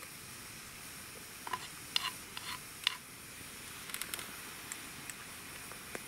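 Faint steady hiss with a scattered handful of small, sharp crackles and ticks, typical of a wood campfire burning.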